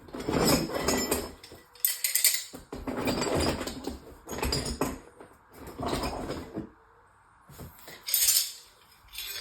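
Steel combination wrenches clinking and clattering against each other as they are handled, in about six short bursts with quiet gaps between, the loudest near the end.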